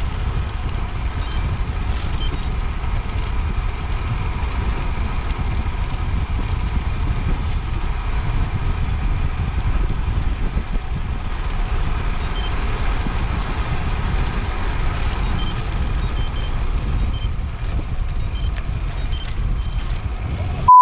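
Steady wind rush and road noise on an action camera's microphone while riding a road bike on tarmac. A short, high beep comes right at the end.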